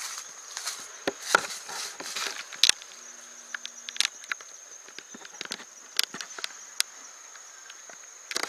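Insects trilling steadily at one high pitch, with scattered short clicks and taps over it.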